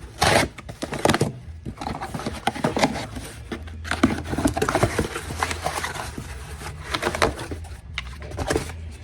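Washing-machine drain pump run on the bench from a 110 V jumper, humming with irregular clicking and rattling. It sounds like trash: the sign of a broken pump.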